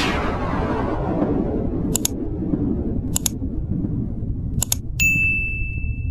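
Subscribe-button animation sound effects: a burst of noise fading away, then three mouse clicks about a second apart, then a bell ding near the end that rings on, over a low rumble.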